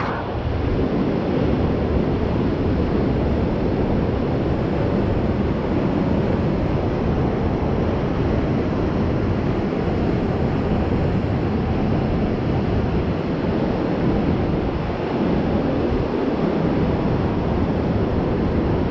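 Steady, loud rushing noise with a flickering low rumble: wind buffeting the microphone.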